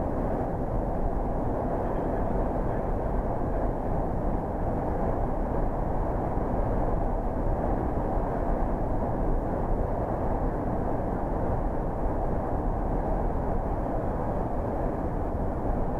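Steady low rumble of a coach's engine and tyres, heard from inside the cabin while it drives through a road tunnel.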